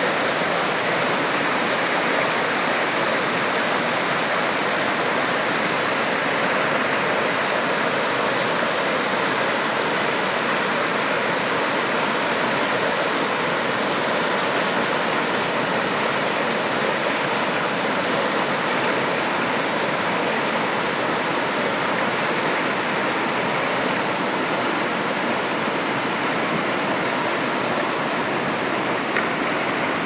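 River rapids: fast water rushing over and around boulders, a steady, unbroken roar of white water.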